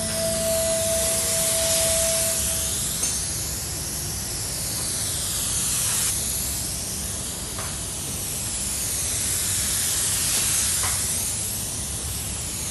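Compressed air hissing steadily from a gravity-feed spray gun as it sprays paint onto a car door panel. The hiss swells and sweeps back and forth in tone as the gun passes along the panel.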